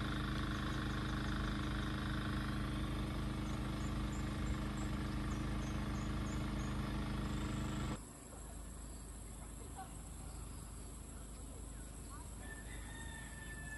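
A steady engine-like drone with a few faint high chirps over it, cut off abruptly about eight seconds in. Quieter outdoor background with a few faint high calls follows.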